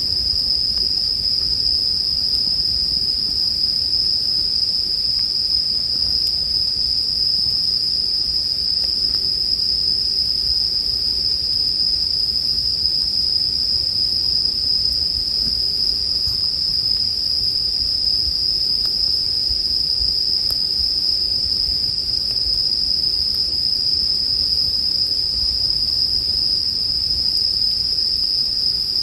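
Japanese bell crickets (suzumushi) singing in a dense, steady, high-pitched chorus, with a low rumble and a few faint crackles of a campfire beneath.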